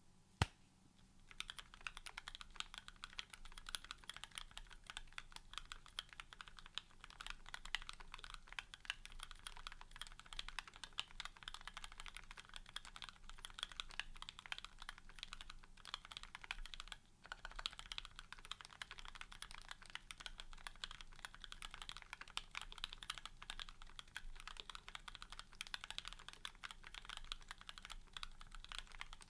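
Fast, continuous typing on an R1 Cypher custom mechanical keyboard with lubed Gateron Ink linear switches, a carbon fibre plate and GMK keycaps. A single sharp click comes just before the typing starts, and the keystrokes stop briefly about seventeen seconds in.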